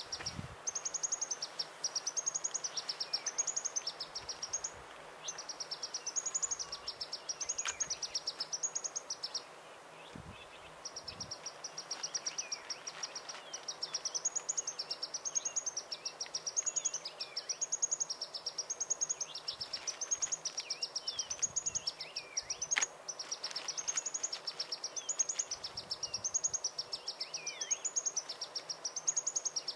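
Insect chorus: a high-pitched, rapidly pulsing buzz that swells and fades about once a second and breaks off briefly about a third of the way in, with scattered short bird chirps in between.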